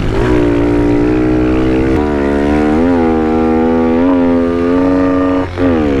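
Kawasaki KLX110 pit bike's small single-cylinder four-stroke engine held at steady high revs under full throttle, with brief dips about three and four seconds in, then the revs fall away about five and a half seconds in.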